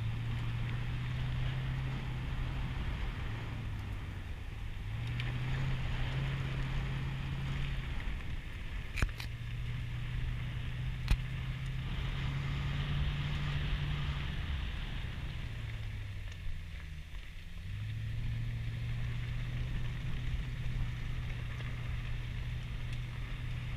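Car engine running as it drives along a gravel road, its pitch stepping up and down with the throttle and easing off briefly about two-thirds of the way through, over a steady hiss of tyres on gravel. Two sharp knocks, about two seconds apart, from stones or bumps under the car.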